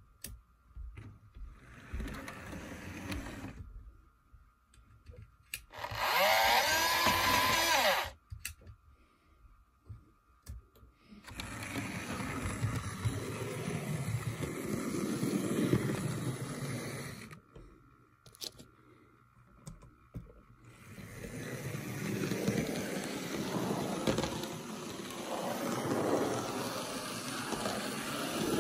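HO scale Thomas the Tank Engine model locomotive running on the track: the whir of its small electric motor and its wheels on the rails, swelling and fading in several long stretches as it passes, with a short louder stretch about six seconds in.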